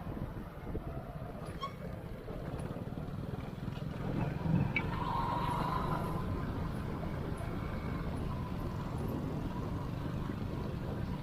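Hero Splendor motorcycle's single-cylinder four-stroke engine running while riding, a steady low rumble mixed with road noise.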